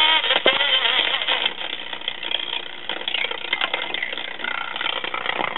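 Early-1940s Truetone battery-set tube radio playing an AM station through its own speaker: a voice at first, then a busy, noisy sound. The audio is weak and distorted, the sign of a leaky coupling capacitor letting positive voltage onto the output tubes' grids and loading the B+ supply down.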